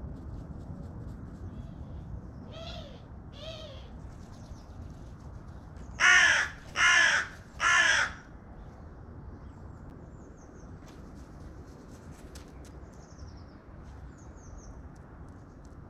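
Carrion crow cawing: two fainter caws, then three loud harsh caws in quick succession. Faint high chirps of small birds follow over a low steady background rumble.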